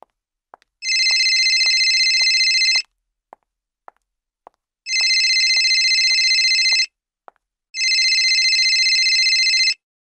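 Mobile phone ringing for an incoming call: three electronic rings of about two seconds each, a steady high tone, with a short pause between the second and third.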